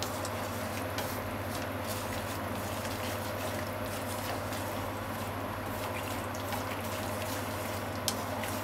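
Ground pork simmering in a seasoned liquid in a frying pan, bubbling and crackling steadily, with light clicks as chopsticks stir it and one sharper click about eight seconds in. A steady low hum runs underneath.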